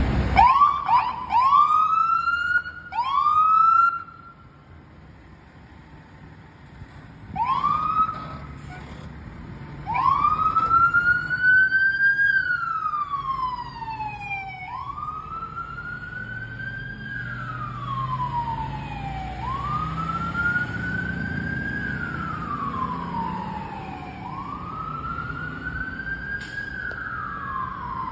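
Fire engine siren: a few short rising whoops at first, a brief lull, then a long wail that climbs and falls again about every five seconds.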